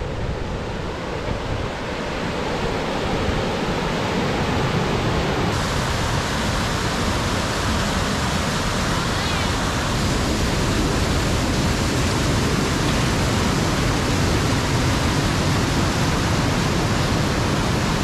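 Steady rushing of Narada Falls, a large waterfall, pouring water heard close up. About five seconds in the sound turns abruptly brighter and hissier.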